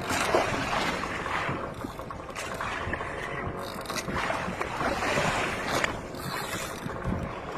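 Fishing boat at sea: water washing against the hull in swells, with wind on the microphone.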